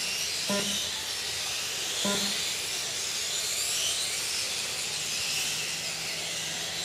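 Several 1/8-scale electric RC motorcycles racing, their motors whining high, each whine rising and falling in pitch with the throttle, over a steady hiss.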